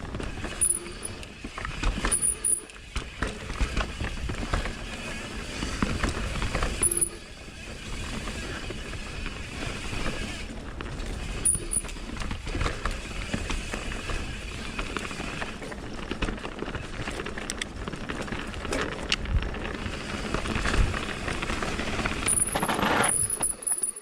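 Mountain bike descending a dirt trail: steady rolling tyre noise over loose loam, with frequent knocks and rattles from the bike over bumps.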